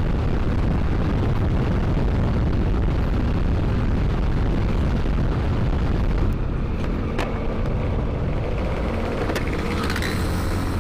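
Wind buffeting the camera microphone on a moving Yamaha NMAX scooter, with the scooter's engine running underneath. About six seconds in the wind eases and the engine's steady hum comes through more plainly, with a couple of short ticks.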